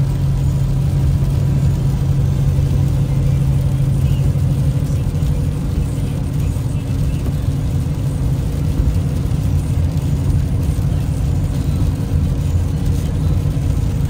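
Car road noise heard from inside the cabin: a steady low rumble with an engine hum that fades about five seconds in.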